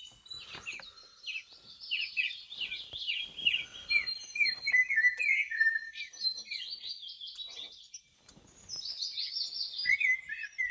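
Birds singing, a dense chorus of overlapping quick chirps and trills, with a brief lull about eight seconds in.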